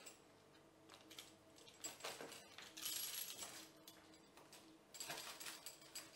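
Pizza cutter wheel rolling through a thin, crisp-baked tarte flambée crust, a faint crunching crackle in several short passes: the sound a properly crisp base should make when cut.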